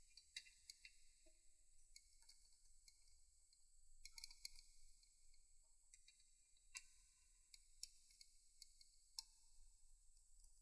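Faint, scattered clicks and light metallic clinks of small metal parts being handled and fitted on a Triumph T120 cylinder head, a few of them ringing briefly.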